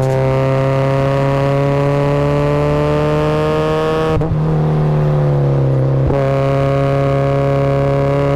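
Supercharged Mazda Miata inline-four engine running hard on track, its pitch climbing steadily. The note breaks briefly about four seconds in and again about six seconds in, as gears are changed.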